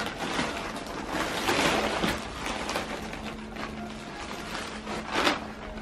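Plastic poly mailer bag crinkling and rustling as hands pull it open, in uneven bursts, loudest about a second and a half in and again near the end.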